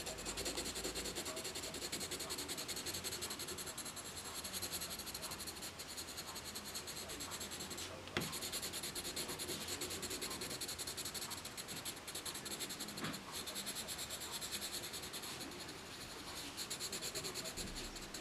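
Red colored pencil shading on paper: a steady, scratchy rubbing made of rapid back-and-forth strokes, with a single click about eight seconds in.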